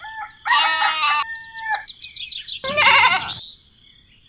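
Goat bleating twice: a short call about half a second in and a wavering, shaky one about three seconds in.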